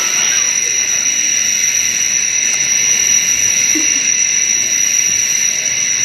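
Insect sound-effects recording: a loud, steady, high-pitched buzzing drone that does not break.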